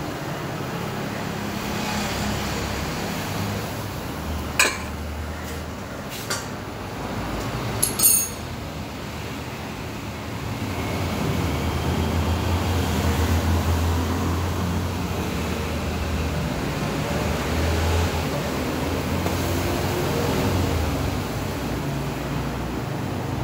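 Steady low rumble that grows louder after about ten seconds, with three sharp metal clinks of kitchen utensils in the first eight seconds.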